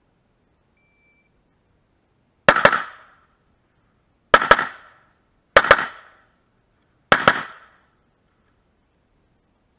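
AR-15-type rifle fired in four quick double taps, two shots a fraction of a second apart in each pair, the pairs coming about one and a half seconds apart. A short faint beep about a second in, typical of the shot timer's start signal.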